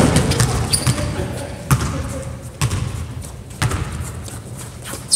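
Basketball being dribbled on a gym's wooden floor, a few sharp bounces about a second apart, with a short sneaker squeak about a second in and faint voices of players.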